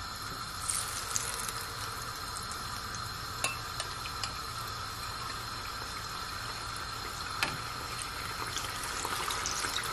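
Ripe plantain chunks frying in hot vegetable oil in a saucepan: a steady sizzle and bubbling that swells about a second in as the first spoonful goes in, with a few sharp clicks, growing a little louder near the end as a second spoonful is added.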